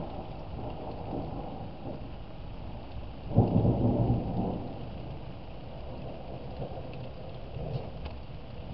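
Thunder rumbling low over steady rain, with a sudden louder clap about three and a half seconds in that rolls on for about a second before dying back to the rumble.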